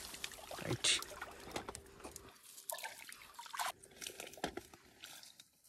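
Faint trickling and splashing of water, broken by scattered small clicks and rustles.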